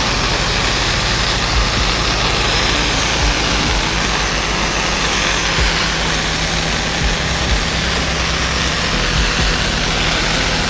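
A 12 GPM pressure washer's engine runs steadily while water hisses from the spray wand as the plants are wetted down.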